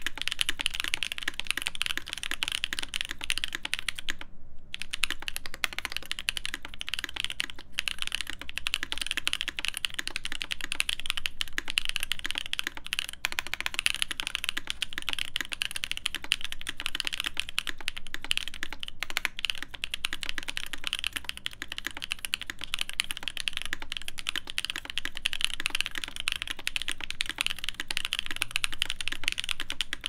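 Fast continuous typing on a Matrix 8XV2.0 add custom mechanical keyboard with lubed Moyu Black linear switches, a carbon fibre plate and Hammerworks CRP keycaps: a dense run of keystrokes with a brief pause about four seconds in.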